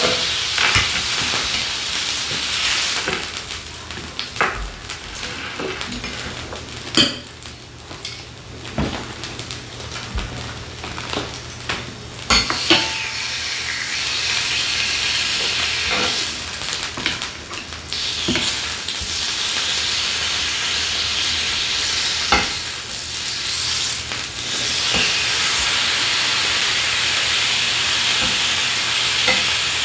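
Thin-sliced beef brisket sizzling on a grill pan over a portable gas stove, with tongs clicking against the pan now and then. The sizzle eases off for several seconds partway through, then comes back fuller and steady.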